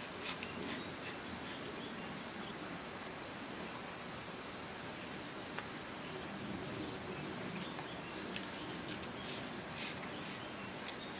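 Light clicks and scrapes of copper winding wire being worked by hand into the slots of an electric motor stator, over a steady outdoor hiss with a few short bird chirps.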